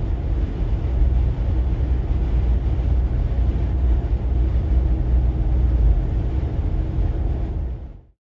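Steady low vehicle rumble, cut off sharply about 8 seconds in.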